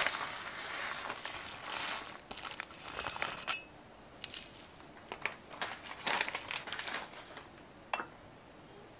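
Crushed biscuit crumbs rustling and crunching as a metal spoon pushes them around a metal pie pan, with light clicks of the spoon against the pan. The rustling is densest for the first three and a half seconds, then thins to scattered clicks, with one sharper click near the end.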